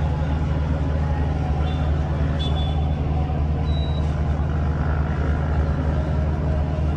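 A large engine running steadily, a deep, even hum, with indistinct voices in the background.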